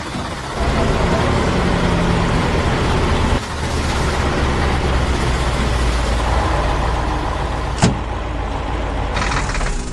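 Heavy vehicle engine running steadily under a loud rush of noise, with one sharp click about eight seconds in.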